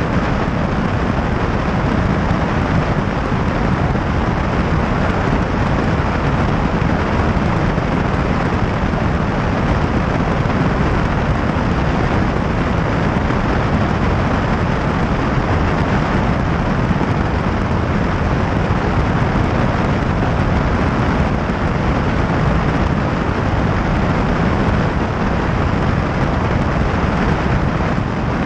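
Steady in-flight cabin noise of a high-wing light aircraft: piston engine and propeller running with rushing air, an even, deep rumble that does not change.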